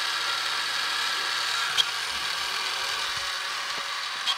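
Fisher-Price Construx Power Pack's small battery-powered motor running steadily with a whine, winding in a string to hoist a hanging toy vehicle. Two short clicks come through, one a little under halfway and one at the end.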